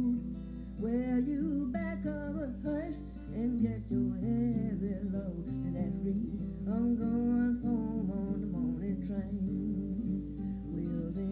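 A vinyl record playing a blues song: a woman singing over acoustic guitar, with a steady low hum underneath.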